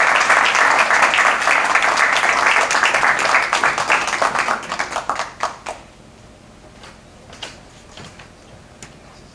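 Audience applauding, a dense patter of many hands clapping that dies away about halfway through. A few faint knocks follow in a quiet room.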